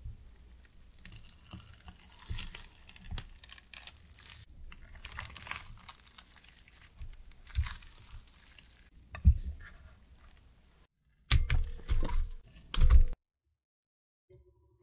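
Silicone spatula stirring and breaking up set custard cream in a stainless steel pan: soft, irregular squishing and scraping against the metal. Near the end comes a short run of louder thumps and knocks, then it stops.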